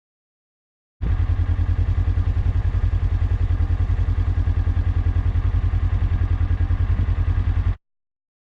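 Tractor engine running close by at a steady speed, a fast, even chugging. It cuts in sharply about a second in and cuts off just as sharply near the end.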